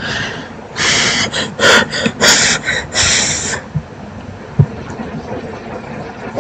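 A person making a string of loud, breathy snorts or exhales close to the microphone, bunched in the first half, with a few soft low thumps.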